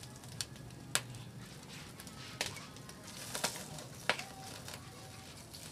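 Open fire under a wire grill, with about five sharp clicks and pops over a low steady background; metal tongs click against the rack and meat as the grilling pork is turned.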